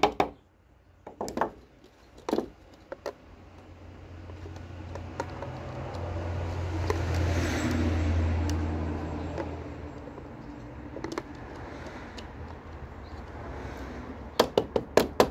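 Hard plastic clicks and knocks as the parts of a Black & Decker handheld vacuum are handled, ending in a quick run of clicks as the dust cup is pressed back onto the body. In the middle a low rumble swells and fades over several seconds.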